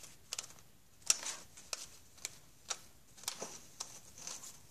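Hockey trading cards being flicked through one at a time by hand, each card making a short, sharp snap about every half second.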